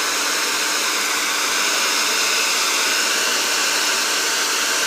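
Handheld hair dryer blowing steadily on its hot setting into hair wound on a round brush.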